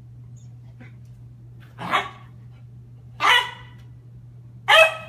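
Puppy barking in play: three short barks about a second and a half apart, from a puppy crouched in a play bow.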